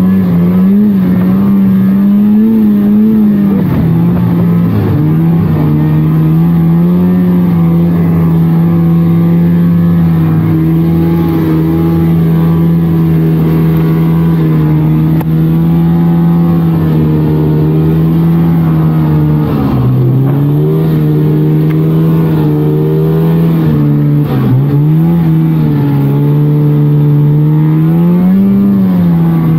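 1999 Polaris trail snowmobile's two-stroke engine running at a steady cruising pitch under way. Its speed dips briefly a few times and picks up again near the end.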